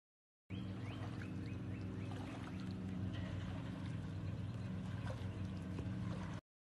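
Steady low machine hum, like a motor running, with a quick run of about five short high chirps in the first couple of seconds.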